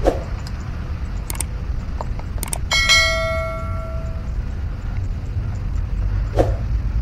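Subscribe-button animation sound effect: a couple of sharp clicks, then about three seconds in a bright bell ding that rings on for about a second and a half. A steady low rumble runs beneath it.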